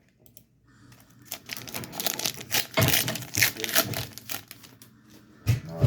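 Foil booster pack wrapper of Pokémon trading cards being torn open and crinkled, a run of short rustles and rips.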